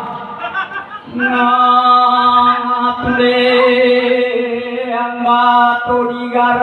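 Voices chanting in long, steady held notes, broken by short pauses about every two to three seconds.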